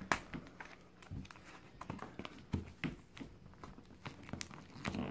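Small cardboard box being handled and its end flap pried open by hand against a wooden table: a handful of light, scattered clicks and taps with faint rustling.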